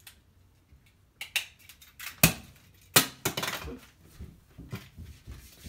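A handheld stapler snapping staples through T-shirt fabric: a few sharp clicks between about one and three seconds in, the loudest a little past two seconds, with rustling of cloth after the last.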